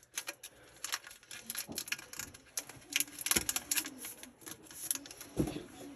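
Irregular clicks and rustles of Pokémon trading cards and booster-pack foil being handled and flipped through.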